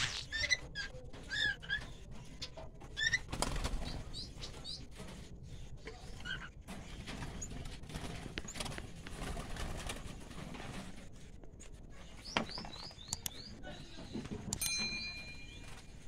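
Small caged parrots chirping in short, high, repeated calls, with rustling and wing flapping from the cage. Near the end a steady electronic chime sounds.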